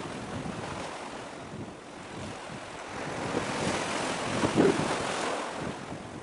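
Wind buffeting the microphone over choppy water, with waves lapping; a stronger gust comes in the second half.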